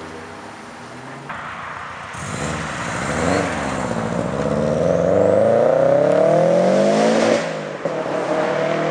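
Modified car accelerating away. Its engine revs climb for about three seconds, drop sharply at a gear change near the end, then climb again.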